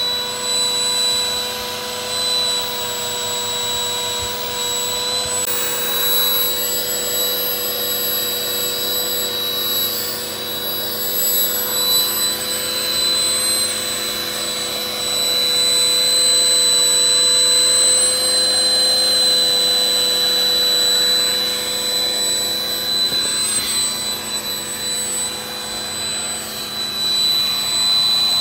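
Rechargeable electric air pump running steadily with a high, even whine as it inflates a large inflatable camel float.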